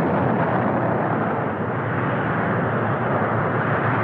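Steady jet-engine noise from the twin Pratt & Whitney TF30 turbofans of a Grumman F-14 Tomcat, running without a break.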